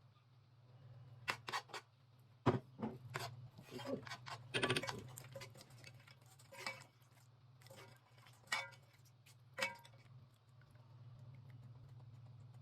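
Cutlery clinking and scraping on plates in scattered sharp clicks during a meal, over a steady low hum.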